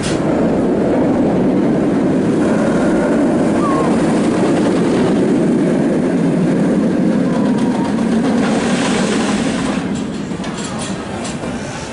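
Bolliger & Mabillard inverted steel roller coaster train rumbling along its track: a steady, loud rumble that eases off about nine seconds in.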